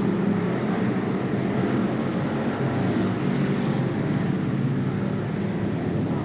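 Several stock car engines running at racing speed around the oval, a steady, dense drone.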